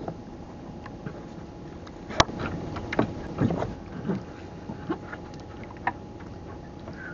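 Knocks and clicks of longline fishing gear being handled against the wooden hull of a small outrigger boat: one sharp click about two seconds in, a cluster of knocks a second later, and a few more scattered clicks, over a steady hum.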